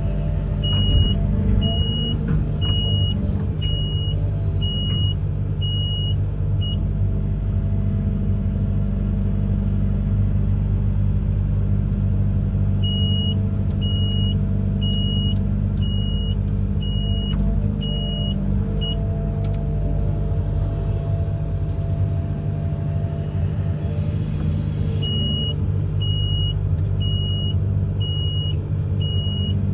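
Amphibious excavator's diesel engine running steadily, with its warning alarm beeping about once a second in three spells of several seconds. The alarm sounds while the machine travels or swings.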